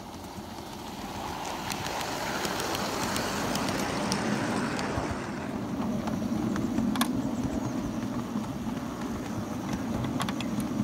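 Miniature Class 47 locomotive on 5-inch gauge track approaching and running past, its wheels rolling on the rails in a rush that swells over the first few seconds. A steady low running hum follows, with a few sharp clicks about two thirds of the way through and near the end.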